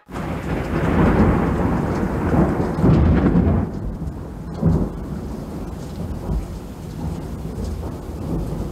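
Thunderstorm sound effect: a long roll of thunder over the first few seconds, another short clap about halfway through, then a steadier rumble with the hiss of rain.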